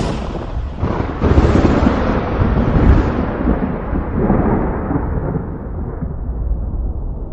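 Thunder: a sharp crack right at the start, then a long rolling rumble that swells about a second in and slowly dies away.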